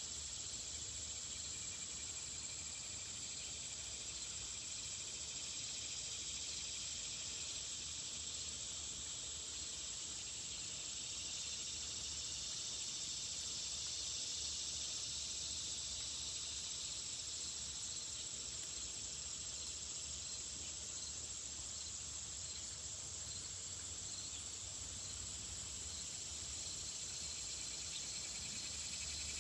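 Steady, high-pitched insect chorus, with a faint low hum underneath.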